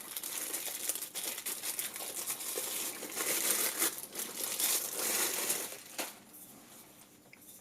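Packaging crinkling and rustling as it is handled and unwrapped, dense for about six seconds and then dying down.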